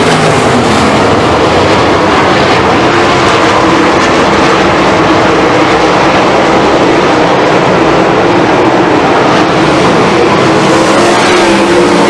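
A field of 410 sprint cars racing on a dirt oval. Their 410-cubic-inch V8s run loud and continuous at racing speed, with many engine notes overlapping and rising and falling in pitch as the cars go by and through the turns.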